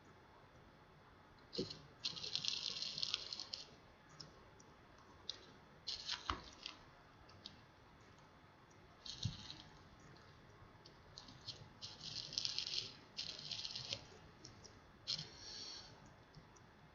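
Small screws being turned out of a tablet's plastic back case with a hand screwdriver: about five short spells of scratchy grinding, with small clicks and taps between them.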